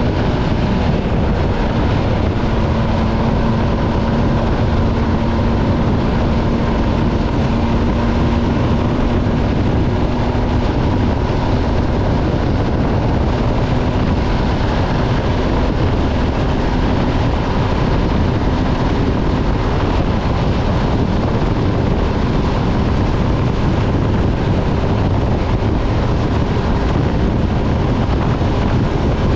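MV Agusta Stradale 800's inline three-cylinder engine running at a steady cruise, with no revving up or down, mixed with heavy wind rush on the microphone.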